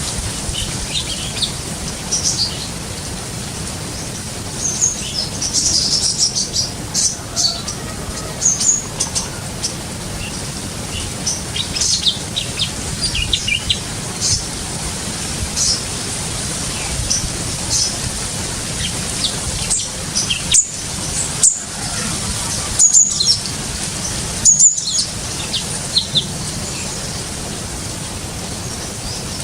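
Birds chirping and calling in short, scattered high notes, thickest in two spells, over a steady hiss.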